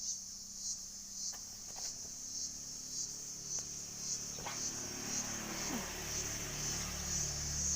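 Crickets chirping in a high, even pulsing rhythm, a little under two chirps a second, with a few faint clicks and a low hum coming in about five seconds in.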